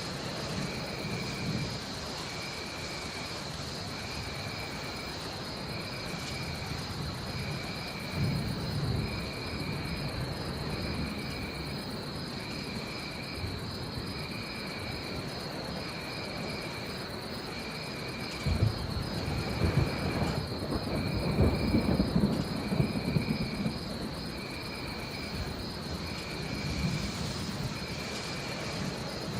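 Steady rain with low rolling thunder, which swells for several seconds about two-thirds of the way through. Under it runs a continuous shrill insect trill, and a short high call repeats about once a second.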